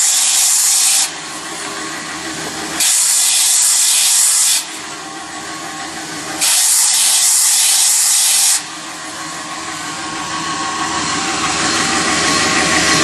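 Gecam 131 corner linisher, an oscillating abrasive belt grinding the welded corner seam of a sheet-metal box: three loud hissing grinding passes of about two seconds each, with the belt running more quietly in between and afterwards.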